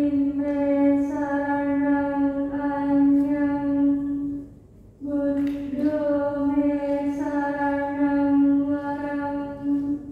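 A woman chanting a Buddhist paritta on one steady, unchanging pitch, in two long phrases with a short pause for breath about halfway through.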